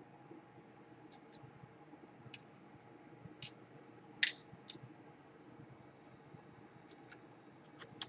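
Scattered light, sharp clicks of small screws and a screwdriver being handled over a plastic parts tray and the laptop chassis during reassembly, about nine in all, the loudest about four seconds in, over a faint steady hum.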